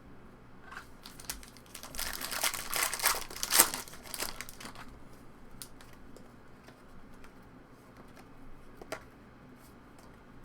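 Foil trading-card pack wrapper crinkling and tearing open in a burst of a few seconds, followed by faint scattered clicks and taps of cards being handled.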